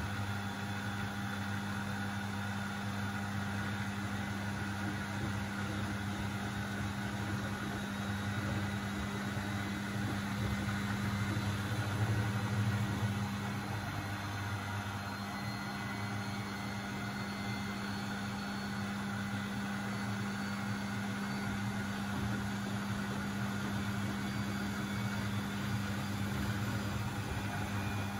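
Beko WMB71642W front-loading washing machine running mid-cycle: a steady low machine hum that swells briefly about halfway through.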